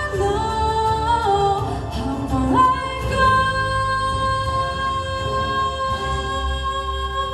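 A singer performing live over instrumental accompaniment, the voice gliding between notes and then holding one long note from about two and a half seconds in.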